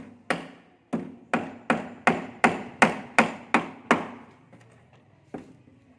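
Hammer blows on wood during carpentry on a door: about ten sharp strikes in quick, even succession, getting louder, then one more strike a little over a second later.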